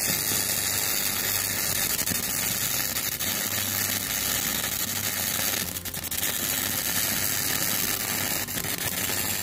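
Welding arc of a Weldcom V2000 MIG welder laying a bead in a steel joint at full power. It runs as a steady noise for about nine seconds, dips briefly a little past the middle, then stops.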